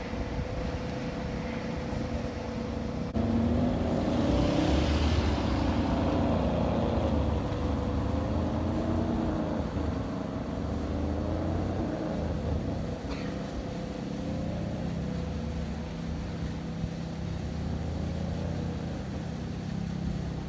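Ferrari 599 GTB Fiorano's V12 engine running at low speed as the car creeps forward. About three seconds in it gets louder and its pitch wavers with light throttle for several seconds, then it settles back to a steady low-speed hum.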